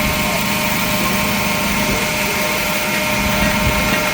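Steady hum of shop machinery running, a motor holding one even pitch over a constant rushing noise.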